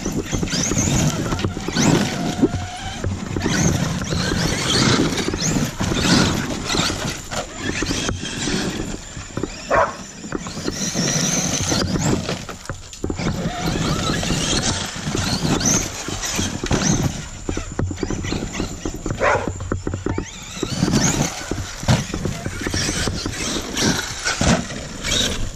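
Traxxas E-Revo 2.0 and X-Maxx electric RC monster trucks driving over a stone pile: brushless motors whining up and down in pitch with the throttle, over the crunch and scrabble of tyres on loose gravel.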